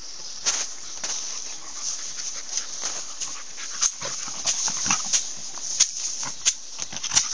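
Dogs, Alaskan malamutes among them, at play together, making many short, sharp sounds at irregular intervals from about half a second in.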